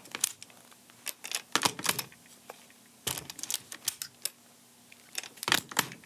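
Scattered sharp clicks and knocks of a camera and its quick-release mount being handled, coming in small clusters a second or two apart.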